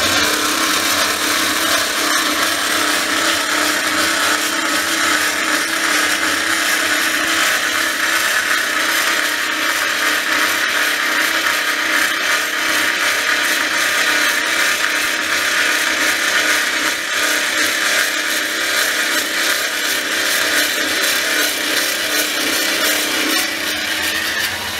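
Macc horizontal bandsaw running and cutting through square metal tube: the blade saws with a loud, steady cutting noise over the running machine.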